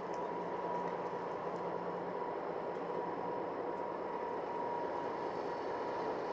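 DB class 364 (V 60) diesel shunting locomotive running steadily as it creeps forward at walking pace, its engine drone carrying a thin high whine.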